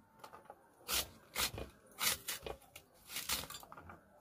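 Onion being sliced against an upright curved floor blade (boti): about six short, crisp cuts at an uneven pace, roughly one every half second to a second.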